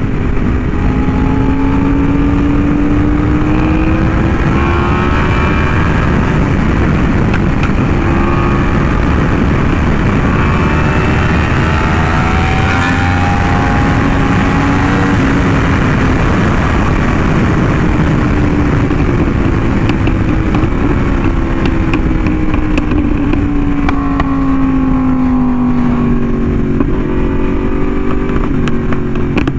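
Yamaha R1M's crossplane inline-four with an SC Project exhaust running at road speed, its pitch climbing and falling slowly as the throttle changes, over heavy wind and road noise.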